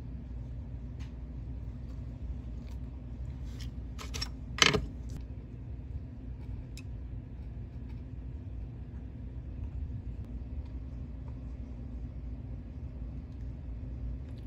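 Steady low hum of bench noise while circuit-board components are handled and soldered, with a few small clicks and one sharp click about four and a half seconds in.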